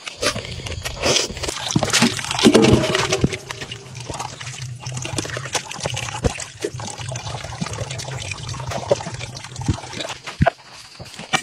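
Liquid sloshing and dripping in a shallow bowl as live eels writhe and are handled in it, with many short wet clicks and knocks.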